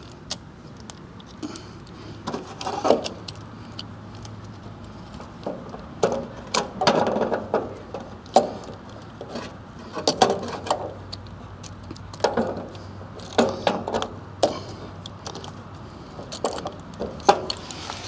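Hand deburring of a cut copper refrigerant line: short metallic scrapes and clicks of the tool on the tube end, in irregular strokes a second or two apart.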